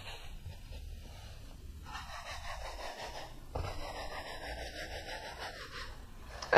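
Palms rolling a rope of semolina pasta dough back and forth on a floured wooden board, making a soft, steady rubbing hiss as the pici are stretched thin.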